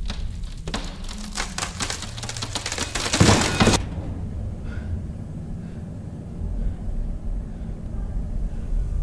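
A rapid clattering rattle of many clicks packed close together. It starts just under a second in, builds to its loudest at about three seconds and cuts off suddenly, over a steady low rumble.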